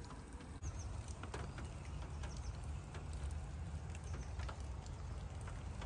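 Light rain with a steady low rumble and scattered faint ticks, and a couple of faint bird chirps, the first about half a second in.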